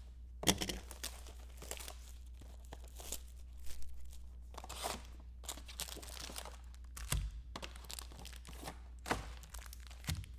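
Packaging on a box of trading cards being torn open and crumpled, with irregular rustling and crinkling and a few knocks of the box against the table.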